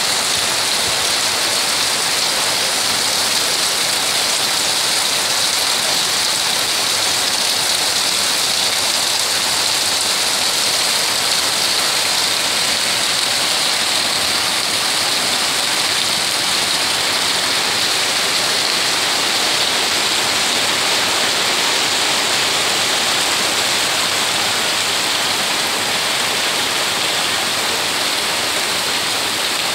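Heavy rain pouring steadily onto corrugated sheet roofs and trees, a loud, even hiss with no let-up.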